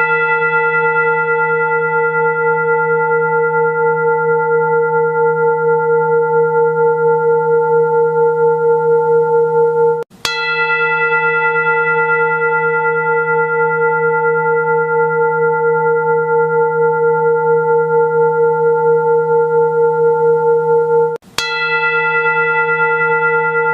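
A bell-like metal tone rung by a strike and left ringing, with a slow, even pulse in its ring. It is struck again twice, about eleven seconds apart, and each time the ring cuts out for an instant just before the new strike, like a looped recording.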